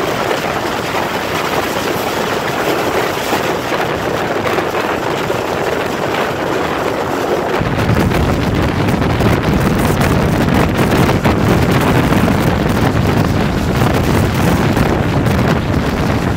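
Hazara Express passenger train running at speed, heard from aboard: a steady rush of wind and running noise, with wind buffeting the microphone. The low rumble gets louder about halfway through.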